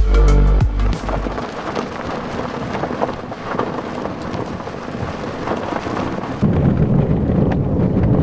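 A pickup truck on a dirt road: a rough, even rushing of wind and tyres. About six and a half seconds in it changes to the louder, lower hum of the truck's cab.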